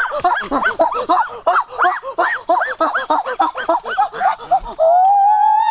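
Domestic goose honking: a rapid run of short honks, about three a second, then one long drawn-out honk starting about a second before the end.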